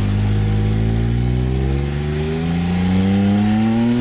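1992 Nissan Pathfinder's engine accelerating under load, its pitch rising steadily as it revs up.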